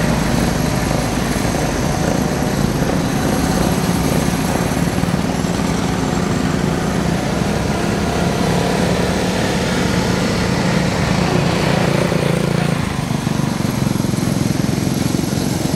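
Small engines of miniature antique-style parade cars running as the cars drive past, a steady drone whose pitched part drops away about thirteen seconds in.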